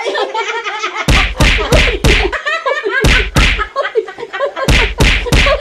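Hands slapping the tabletop in three bursts of quick, hard slaps, about three a second, amid loud laughter from several women.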